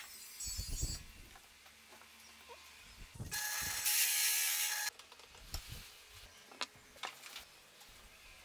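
Drill press cutting through plywood with a hole saw for about a second and a half, a harsh cutting noise with a steady whine in it that stops abruptly. Before and after it come scattered short knocks and clicks of wood and parts being handled.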